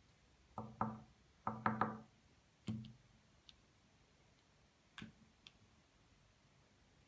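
Irregular light knocks and clicks, as of objects handled on a hard surface: a quick cluster in the first two seconds, then a few single knocks spaced out.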